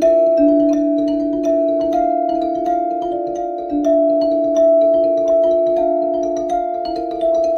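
Background music: slow, layered sustained notes with soft, bell-like mallet tones.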